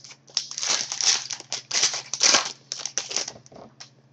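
Crinkling and tearing of a foil trading-card pack wrapper being opened by hand: a run of irregular crackles that fades out near the end.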